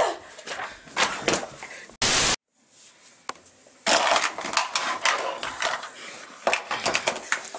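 A few knocks and a short loud burst of hiss, then after a brief hush a dense run of crackling and scraping: hands rummaging inside a paper popcorn box on a wooden table.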